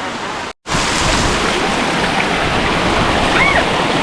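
Waterfall's rushing water, a steady hiss. It cuts out briefly about half a second in and comes back louder.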